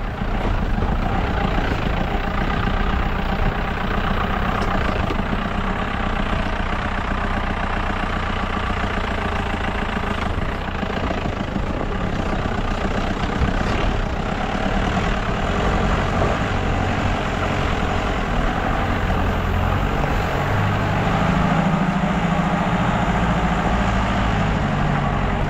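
Four-wheel-drive jeep's engine running steadily in four-wheel drive high range as it drives along a rough dirt and stone track, with tyre and road noise close to the front wheel.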